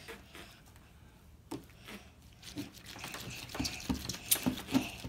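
Slime being squeezed and pulled apart by hand: scattered small wet squishes and sticky clicks, sparse at first and busier in the second half.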